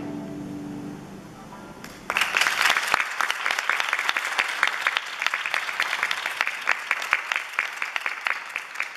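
The last chord of a guzheng ensemble rings on and fades away, then audience applause breaks out suddenly about two seconds in and carries on as steady clapping.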